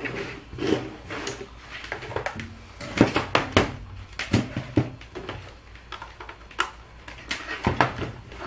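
Irregular clicks and knocks from handling: multimeter test leads put down, the mended power lead's plug pushed into a Brother P-Touch label maker's power jack, and the label maker's keys pressed. The loudest knocks come about three, four and seven and a half seconds in.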